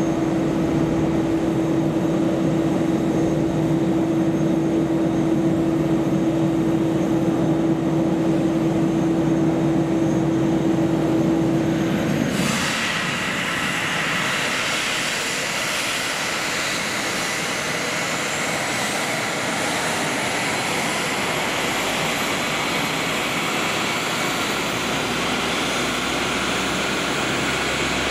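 Airbus A320neo jet engines running with a steady low hum. About twelve seconds in, the sound changes abruptly to a higher hiss with a steady whine and a thin whistle slowly rising in pitch.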